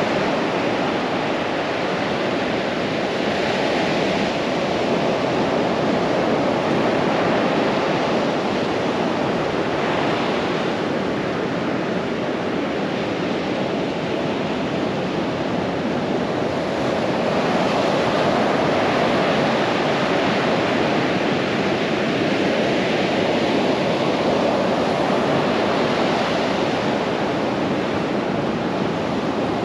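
Pacific surf breaking and washing up a sandy beach: a steady rushing sound that swells and eases every several seconds as each wave comes in.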